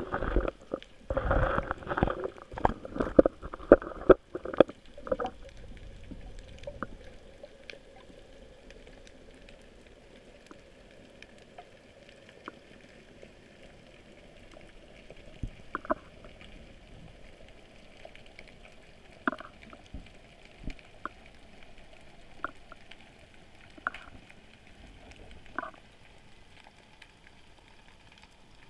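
Muffled underwater knocking and a low water rumble picked up by a camera in a waterproof housing as it is jostled on a rope. After about five seconds it settles into a quiet hiss with occasional single clicks.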